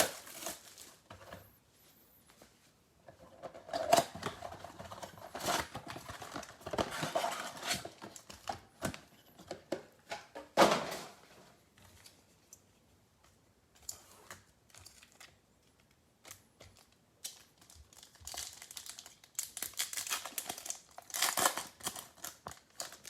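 Crinkling and tearing of the plastic wrap and packaging on a box of baseball trading cards as it is opened, in several bursts with quieter pauses between.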